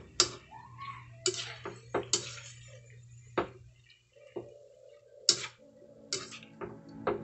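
A slotted spatula scraping and knocking against a steel wok while sliced innards are stirred, giving about a dozen irregular clicks and scrapes.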